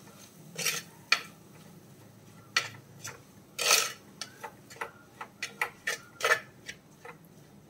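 A metal spoon scraping and knocking against the inside of an earthenware clay pot as spice powders are stirred into a tomato masala, sautéing them until their raw smell goes. Irregular short scrapes and taps, with one longer scrape around the middle.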